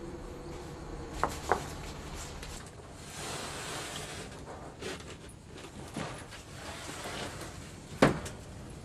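Household handling sounds: two light clinks of china teacups about a second in, then a sliding glass-paned door running along its track, a few soft knocks, and one sharp knock near the end, the loudest sound.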